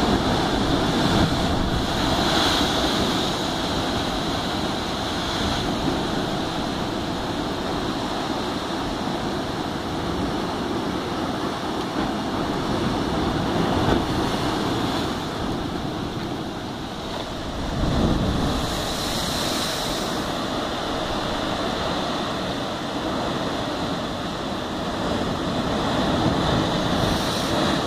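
Heavy ocean surf surging and crashing into a rocky limestone inlet: a continuous rush of churning water that swells louder several times.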